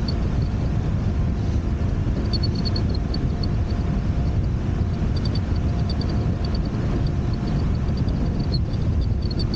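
Steady wind buffeting and road rumble from riding an electric scooter, with strings of faint high chirps on and off over it.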